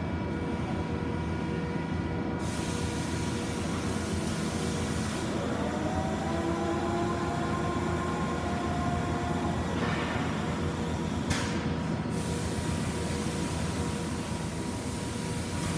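Lucas Precision 7-inch floor-type horizontal boring mill running under power: a steady machine hum and rumble with constant tones. About six seconds in, a whine rises in pitch and then holds steady.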